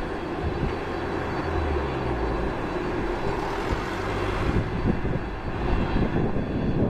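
Boeing 767-300 jet engines running at low power as the freighter taxis, a steady rushing noise with a faint high whine. A low, uneven rumble builds from about halfway through.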